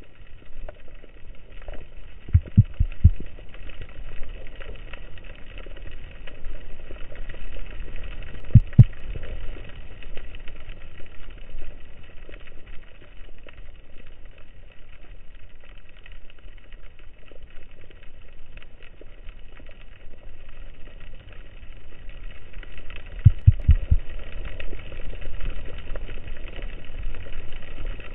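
Underwater ambience picked up by a camera in the sea: a steady hiss and crackle, with short clusters of low thumps about two and a half seconds in, again near nine seconds, and around twenty-four seconds.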